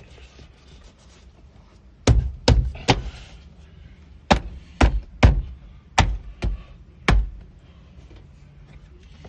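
Inner door trim panel of a Toyota Fortuner being thumped onto the door, pushing its plastic retaining clips home: nine sharp thuds in small groups of three, three, two and one, over about five seconds.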